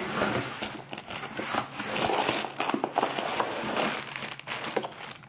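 Packing material rustling and crinkling as hands rummage through an opened shipping box: a dense run of crackles that dies down near the end.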